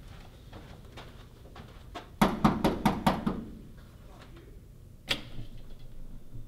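Knocking on an apartment door: a quick run of about six sharp knocks about two seconds in, after faint footsteps. A single sharp click follows near the end.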